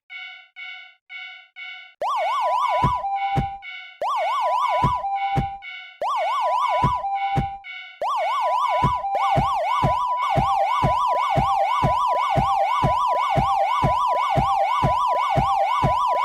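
Cartoon railroad crossing warning bell clanging in a steady 'kan-kan' rhythm. About two seconds in, fast-warbling police-car sirens and low thumps join it in short bursts, then run on continuously from about eight seconds in.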